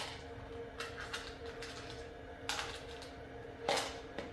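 Small parts of a BGA rework station, its pickup tubes and nozzles, being picked out and handled: a few separate light clicks and clacks, the loudest near the end, over a steady low hum.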